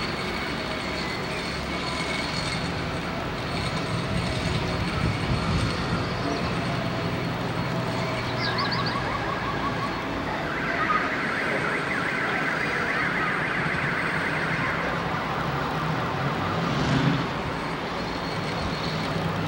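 Town street noise: a steady vehicle engine hum. A high, rapidly repeating sound joins it for about four seconds from about halfway through.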